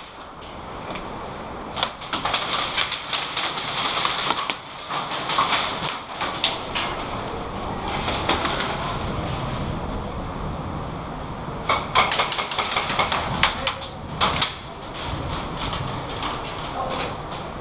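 Airsoft guns firing in rapid bursts of sharp clicks, several bursts with pauses between them over steady outdoor noise.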